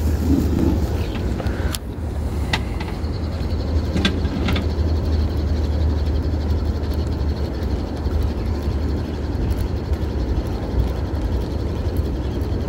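Low, steady hum of a boat motor running as the boat moves slowly, with a few light clicks and knocks about two and four seconds in.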